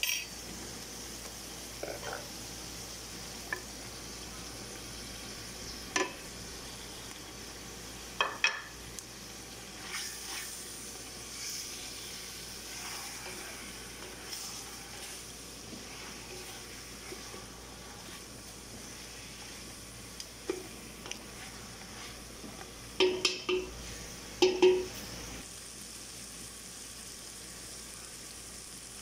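Chicken pieces frying in oil in a stainless steel pot with a steady sizzle, stirred with a wooden spoon. Now and then sharp knocks of the spoon against the pot, loudest in two quick clusters about three-quarters of the way through.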